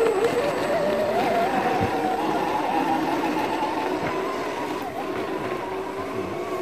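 Scale RC rock crawler's electric motor and gearbox whining under steady throttle as it climbs a rock gully, the pitch wavering slightly with the load. The whine fades a little as the truck pulls away.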